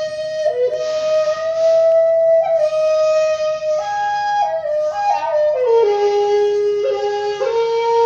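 Solo 1.7 jimori shakuhachi of madake bamboo playing a slow phrase: long held notes with small pitch bends and a breathy rush of air on several notes. The line steps down to lower notes in the second half and rises a little near the end.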